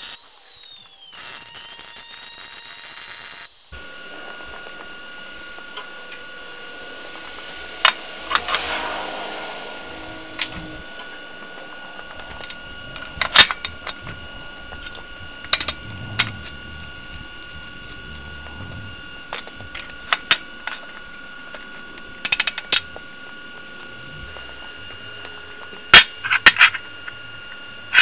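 MIG welding arc crackling in two short runs, then cutting off after about three and a half seconds. After that come scattered sharp metallic clanks and knocks of heavy steel parts being handled and set in place.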